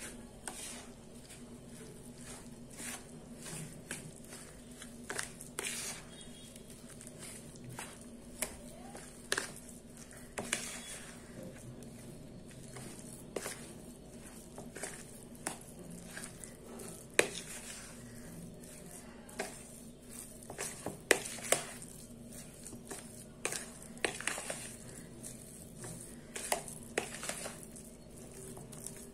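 Silicone spatula stirring a thick semolina-and-flour batter in a plastic bowl: irregular scrapes and knocks of the spatula against the bowl, some louder than others. A faint steady hum runs underneath.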